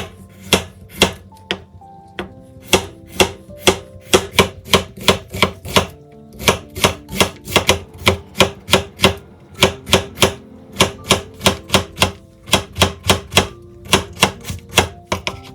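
Kitchen knife chopping against a cutting board in a quick, even rhythm of about three strokes a second, pausing briefly now and then.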